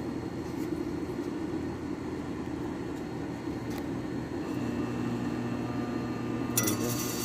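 Air-conditioner compressor energized but failing to start: a steady mechanical noise, then about four and a half seconds in a low electrical hum sets in, with a click near the end followed by a higher buzz. This humming without running is a hard start, typical of a weak, aged capacitor.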